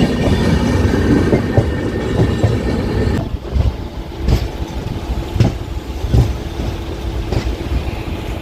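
Local passenger train running on the rails. A dense, loud rumble fills the first three seconds, then it quietens and the wheels clack over rail joints about once a second.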